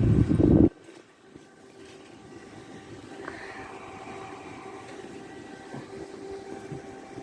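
A loud, low rumble lasting under a second at the start. Then a microwave oven runs with a steady hum that builds up from about two seconds in.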